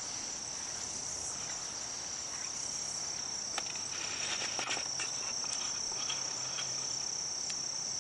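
A steady, high-pitched insect chorus of crickets or similar insects, trilling without a break. A few short clicks and rustles come around the middle.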